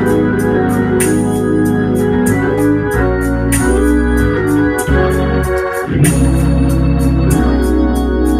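Hammond organ playing sustained full chords that change every second or two over a low bass line, with crisp clicks as the keys strike.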